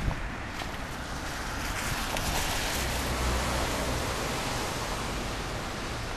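Steady rushing outdoor noise of wind on the microphone and street traffic, swelling a little a couple of seconds in.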